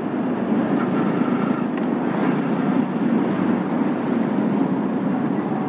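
Motorcycle riding along at a steady speed: a constant rush of wind on the microphone over the engine's steady running.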